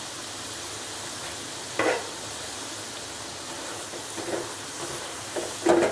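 Potato sticks deep-frying in hot oil in a metal kadhai, a steady sizzle. A spatula knocks and scrapes against the pan a few times, loudest near the end.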